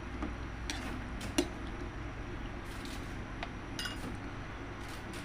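Kitchen utensils and dishes knocking and clinking a few times, the sharpest knock about a second and a half in and a short ringing clink near the end, over a steady low hum.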